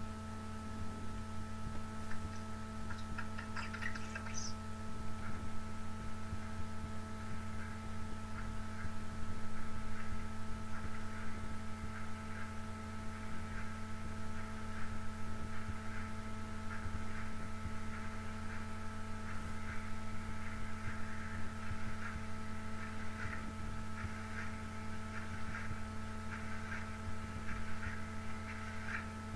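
Steady electrical hum made of several fixed tones, with faint scattered ticking that becomes more frequent in the second half.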